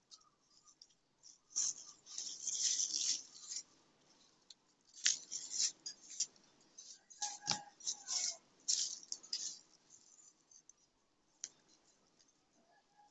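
Fresh Thai basil stems and leaves rustling as they are handled and gathered into bundles by hand, in several crisp bursts, with a short thump about seven and a half seconds in.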